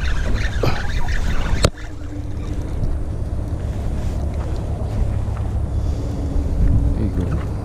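Wind buffeting the microphone, a steady low rumble, with rustling and handling noise from a jacket sleeve and a spinning reel and rod. A sharp click comes just under two seconds in.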